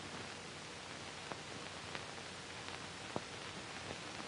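Steady hiss from an old optical film soundtrack, with a few faint clicks; the sharpest click comes about three seconds in.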